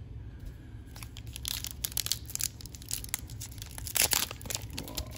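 Foil wrapper of a trading card pack crinkling and being torn open: sharp crackles that start about a second in and are loudest near four seconds.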